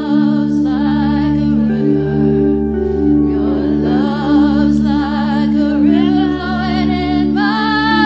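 Slow live worship music: a woman sings long held notes with vibrato over sustained chords from a Roland stage keyboard.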